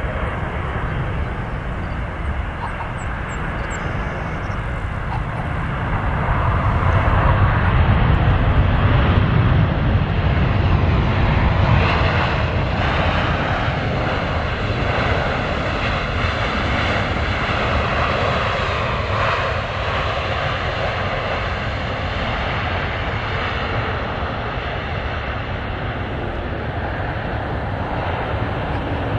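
A Boeing 787-9 Dreamliner's jet engines during landing and rollout: a steady rumbling jet noise that swells about six seconds in and eases back after about twelve seconds.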